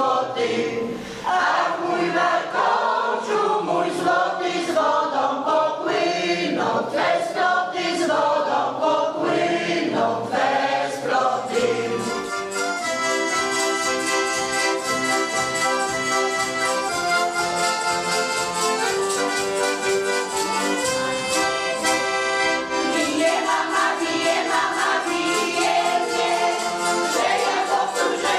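Amateur folk choir of mostly women's voices singing a Polish folk song in unison. About twelve seconds in the voices drop out and the accompanying instrument plays an interlude of steady held chords over a pulsing bass, and the singing comes back near the end.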